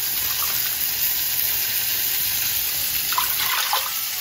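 Water being poured from a plastic measuring jug into a pot of chicken masala, then soaking water drained off soaked basmati rice into the jug: a steady pouring splash.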